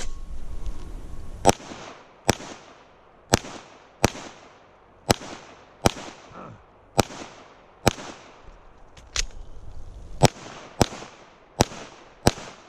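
Pistol shots fired during a timed stage string. There are four pairs of shots, the shots in each pair about three-quarters of a second apart. After a pause of about two and a half seconds come four more shots in quicker succession, each with a short echo.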